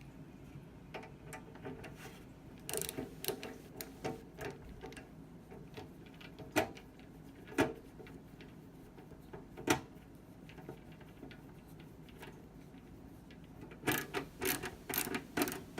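Small clicks and knocks of a Phillips screwdriver working the desktop case screw back in and tightening it. There are a few sharper single knocks midway and a fast run of clicks near the end.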